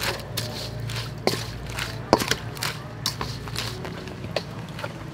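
A wooden spoon stirring sesbania flowers and salt in a stainless steel bowl, knocking and scraping against the metal in irregular clicks.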